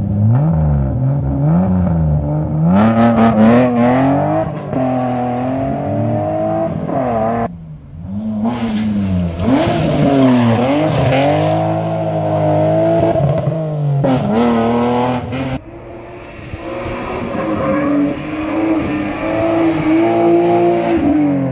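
BMW E30 rally cars' engines revving hard. First one blips its throttle up and down, then it launches. In two later passages a car accelerates through the gears, the pitch climbing and dropping at each shift.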